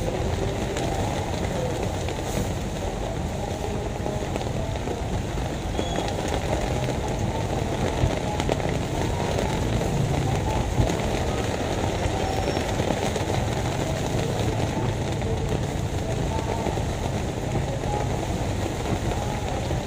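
Heavy rain pouring steadily onto a paved street, with cars and motorbikes passing on the wet road.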